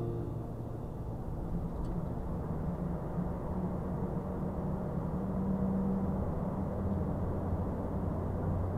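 Scania R580 truck's V8 diesel engine running steadily under load, with tyre and road noise, heard from inside the cab.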